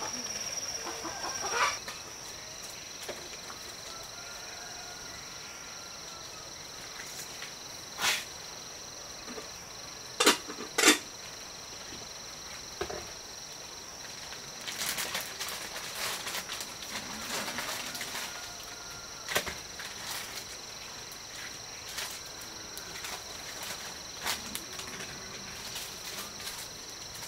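Steady, high-pitched insect drone at two pitches, the lower one joining about two seconds in. Scattered sharp knocks fall over it, the loudest two close together about ten seconds in, with a patch of light clattering a little after the middle.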